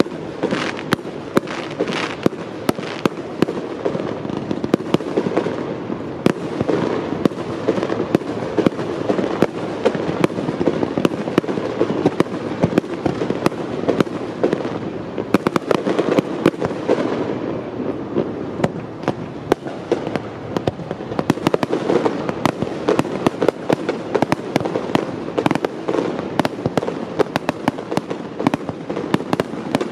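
Aerial fireworks display: shells launching and bursting in quick succession, many sharp bangs and crackles over a continuous rumble, with no let-up.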